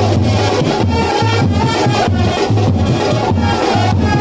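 Loud music with a heavy bass beat, about two pulses a second, and percussion.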